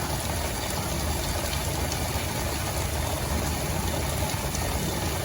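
Steady rainstorm noise: an even hiss over a low, fluttering rumble.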